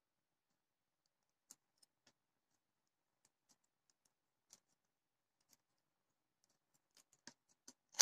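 Faint scattered clicks and ticks of stiff acrylic flower petals and wire being handled and fitted together, with a quicker cluster of sharper clicks near the end.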